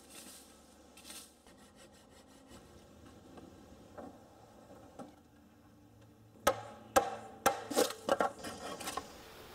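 Quiet scraping and rustling, then, about two thirds of the way in, a run of sharp hollow knocks with a short ringing tone, as bamboo poles are stood upright and knocked into place in a hut wall.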